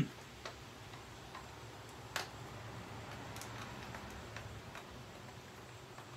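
Faint, scattered clicks and light taps at irregular intervals, one sharper about two seconds in, over a low steady hum.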